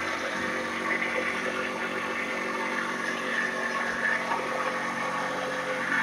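Powered corn sheller running steadily with a constant engine-like drone.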